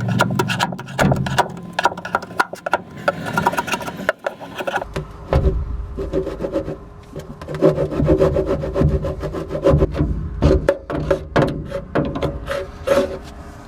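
A saw cutting through a sheet of plywood, with scraping and knocking of the wood throughout.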